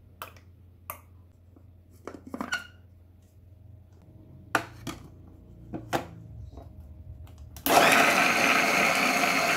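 Electric food chopper running with a loud, steady whir as its blades grind onions with a little oil into a spice paste, starting suddenly near the end. Before it starts there are a few light clicks and knocks as the plastic bowl and the stainless motor unit are handled and fitted together.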